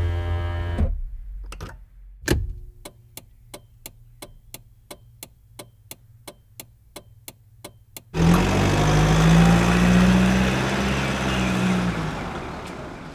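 A sequence of car sound effects: a motor whine cuts off about a second in, then two clicks and a steady ticking at about three ticks a second for some five seconds. Near eight seconds an engine starts abruptly and runs loudly, then slowly fades.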